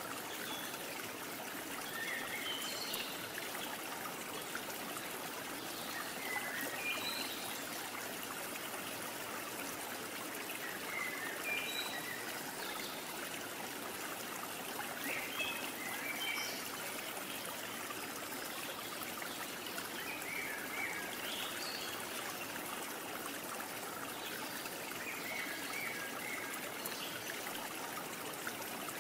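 Steady rushing noise like running water, with short high chirps scattered every few seconds.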